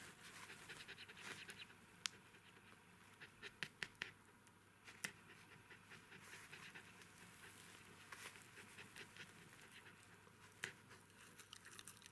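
Faint dog panting with scattered soft clicks and smacks, from a Jack Russell Terrier with her newborn puppies.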